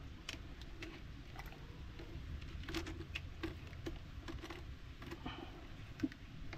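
Scattered light taps and clicks, irregular and a few per second, over a low steady rumble.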